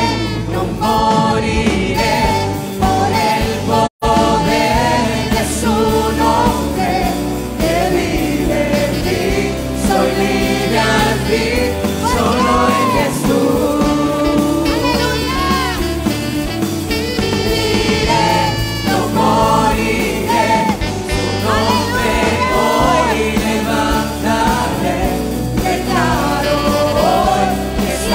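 Worship team singing a Spanish-language gospel song, women's voices leading with the group over a continuous musical accompaniment. The sound cuts out for an instant about four seconds in, then carries on.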